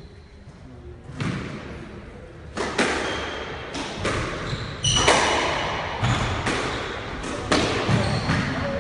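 Squash rally: the ball cracking off rackets and off the front and side walls of the court, a sharp hit every half second to a second, each with a short echo.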